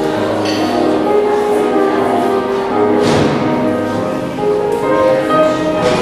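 Instrumental music with held, layered notes and a brighter accent about every three seconds.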